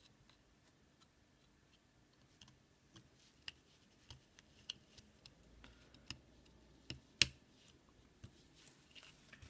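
Faint, irregular small clicks and taps of a circuit board being pressed into its plastic case, with one sharper click about seven seconds in.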